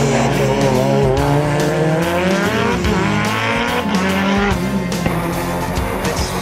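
Lancia Delta Evo hill-climb car's engine revving hard, its pitch climbing and dropping again several times as it runs through the gears, with tyre squeal through the bend.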